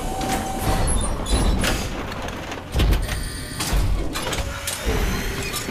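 Sci-fi sliding doors opening one after another, a mechanical whooshing and clanking with several heavy thuds about a second apart.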